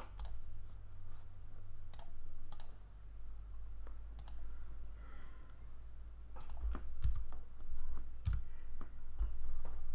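Irregularly spaced clicks of a computer mouse and keyboard as software is operated, over a faint steady low hum.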